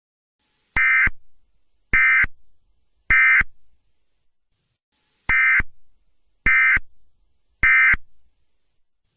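Emergency Alert System digital data tones (SAME code): two sets of three short, identical, buzzy data bursts about a second apart, with a pause between the sets. The bursts are short, typical of the end-of-message code, and each set is preceded by a faint hiss.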